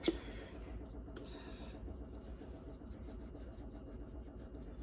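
Plastic cap of a seasoning container snapping open with a sharp click, a brief rustle, then a quick even run of soft shakes, about four a second, as seasoning is shaken out of the container.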